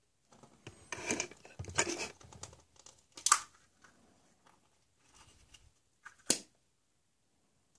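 Hollow plastic toy eggs clattering and rustling against each other as a hand rummages through a pile of them. Then come sharp plastic clicks and two short snaps, about three seconds apart, as a plastic egg is pulled open.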